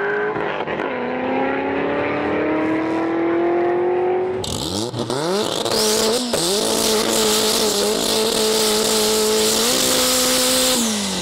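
Turbocharged Honda S2000 race car's engine revving as it rolls off, then held at steady high revs in a tyre-spinning burnout from about four seconds in, with a loud hiss of spinning tyres over the engine note. The revs step up slightly late on, then drop away near the end.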